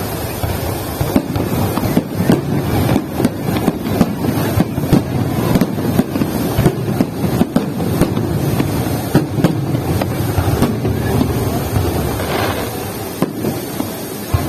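Fireworks display going off: many sharp bangs and cracks in quick, irregular succession over a steady low rumble.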